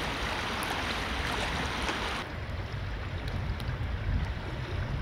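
Shallow river running over rocks, a steady rushing hiss that cuts off sharply about two seconds in, giving way to wind rumbling on the microphone.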